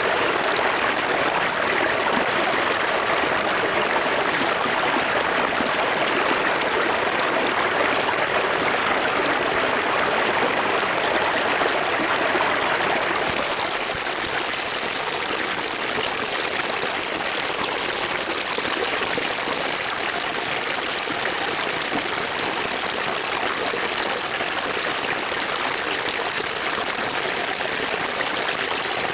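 River water flowing in a steady rushing stream, a little softer from about halfway through.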